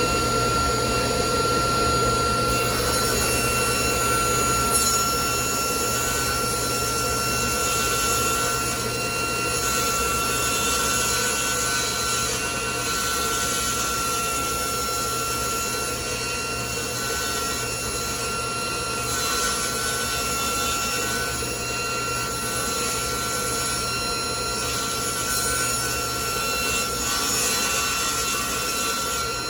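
Table saw running steadily with a constant whine while its blade rips a rough-sawn board.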